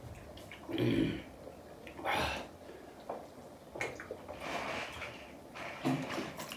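A person sniffing and breathing out hard, with a short low hum about a second in, from the burn of very hot chili.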